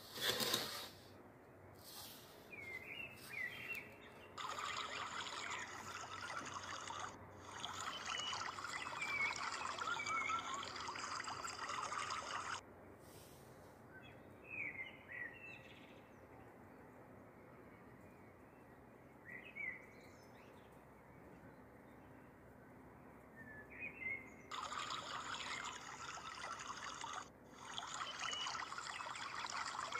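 Birds chirping in short calls, joined for two long spells by trickling, running water that starts and stops abruptly; a single knock right at the start.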